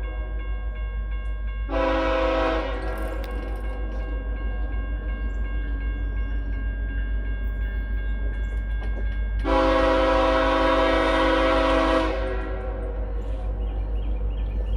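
Diesel locomotive air horn on an approaching BNSF coal train, sounding a short blast about two seconds in and a longer blast around ten seconds in, over the steady ringing of a grade-crossing warning bell.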